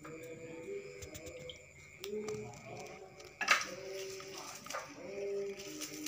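A kitten pouncing on a toy dangling on a string beside a wooden table leg: scuffling and light clicks, with a sharp knock about halfway through. A few short, low calls repeat in the background.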